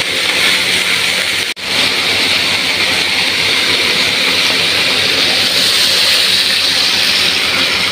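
Taro stems with belacan frying in a hot wok, a steady sizzle while they are stirred and then while water is poured in. The sound cuts out for an instant about a second and a half in.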